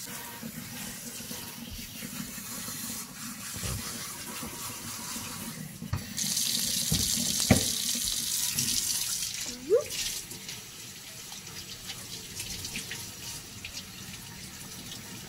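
Water from a pull-out sink sprayer running and splashing over a wet Shih tzu puppy in a sink, louder for a few seconds in the middle. A few short knocks against the sink.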